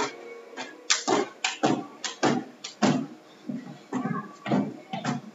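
Athletic shoes landing on a hardwood floor: a quick, irregular run of thuds from people jumping through a high-intensity workout drill. Faint workout music fades out early on.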